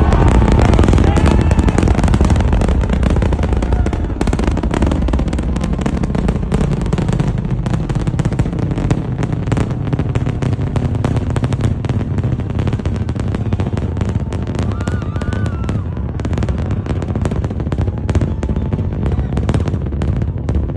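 Space Launch System rocket heard from a distance in flight: a deep, continuous rumble with dense crackling running through it.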